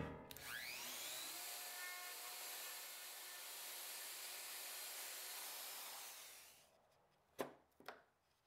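Plunge router with a dust-extraction hose spinning up with a rising whine, then running steadily while it cuts a mortise through a template, and winding down after about six seconds. Two light knocks near the end.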